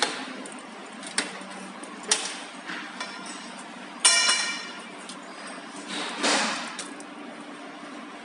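Metal clinks and knocks from handling a rendering machine's aluminium frame and its coiled cable, with one loud ringing metal clank about four seconds in and a scraping rustle about two seconds later. A steady low hum runs underneath.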